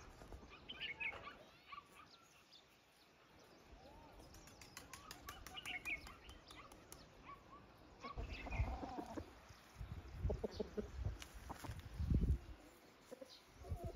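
Chickens moving about with soft clucks, while small birds chirp in short calls now and then. In the second half come several low thumps or flutters.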